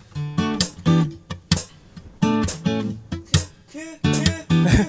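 Acoustic guitar strumming chords in a rhythmic pattern, a song's instrumental intro before the singing comes in.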